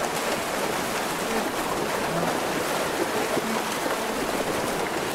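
Blue wildebeest herd crossing a steep dirt riverbank: a steady rushing noise of trampling and sliding earth, with short low grunts from the herd scattered through it.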